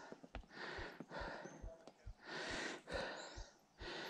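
A person breathing hard after riding, in and out about once a second, with quick soft low thuds underneath.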